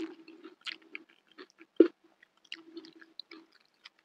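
A person chewing a mouthful of rice with chili sambal close to the microphone: soft, wet mouth clicks, with one louder click just under two seconds in.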